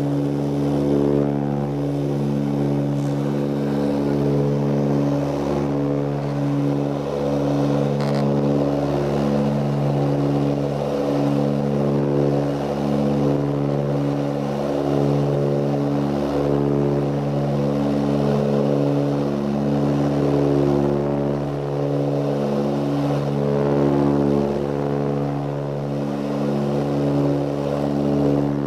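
Ilyushin Il-18's four Ivchenko AI-20 turboprop engines and propellers droning steadily in cruise, heard from inside the cabin. It is a low, even hum of several tones that swell and fade every second or so.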